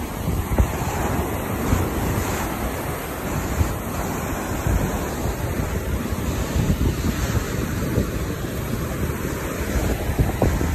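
Small waves breaking and washing up a sandy beach, a steady wash of surf, with wind buffeting the microphone.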